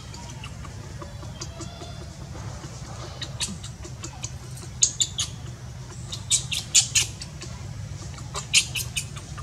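Baby monkey giving short, shrill squeaks in quick clusters, the loudest about halfway through and again near the end: distress cries while it is held down.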